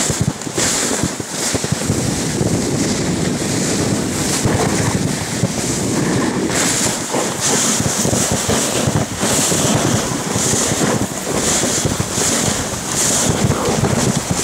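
Wind buffeting the microphone, a loud rushing noise that surges and eases throughout.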